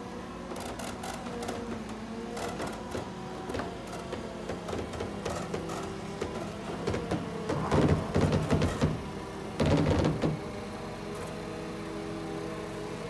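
Boat travel lift running as it carries a hull on its slings: a steady engine hum with irregular clicks and clanks, and two louder bursts of noise, about eight and ten seconds in.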